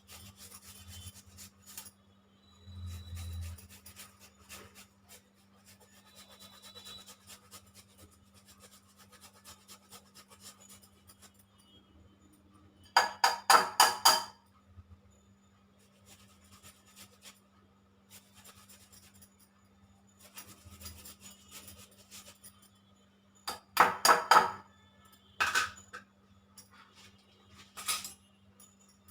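Fresh ginger being grated on a hand grater: long runs of quick, faint rasping strokes, broken twice by a short loud clatter, about halfway through and again near the end.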